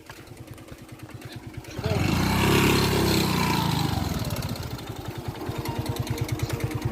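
Motorcycle engine revved hard about two seconds in, its pitch falling back after a couple of seconds, then running steadily at low revs.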